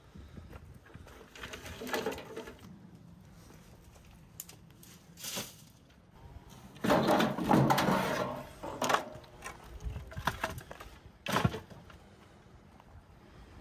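Dry brushwood and wooden planks dropped and pushed into a stone-lined pit, in a series of separate rustling, clattering crashes. The longest and loudest comes about seven seconds in, with a short sharp knock a few seconds later.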